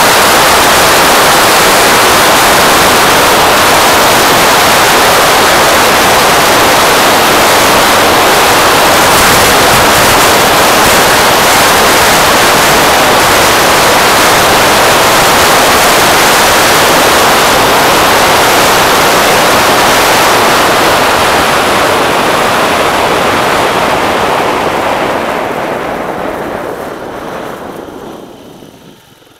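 Wind rushing over the microphone of a camera on a moving scooter: a loud, steady roar of noise that fades away over the last few seconds as the scooter slows for an intersection.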